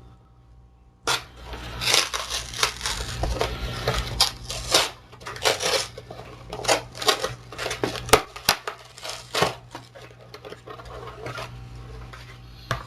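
A mail package being opened by hand: irregular tearing, crinkling and rustling of the packaging, with sharper crackles and taps, starting about a second in.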